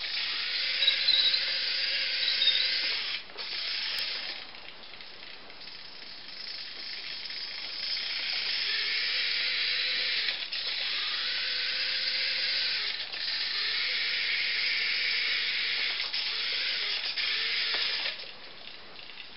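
Small electric drive motor and gearbox of a radio-controlled model tractor whirring as it drives, cutting out and starting again several times and stopping near the end.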